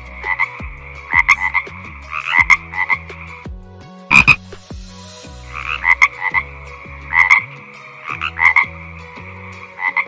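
A frog croaking repeatedly in short pulsed calls, coming in groups of two or three about once a second. The calling pauses for about two seconds around the middle, broken by one sharp knock.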